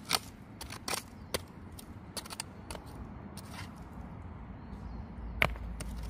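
Small hand hoe scraping and chopping into dry, stony soil: a run of short scrapes and knocks, bunched in the first second and a half, with the sharpest knock about five and a half seconds in.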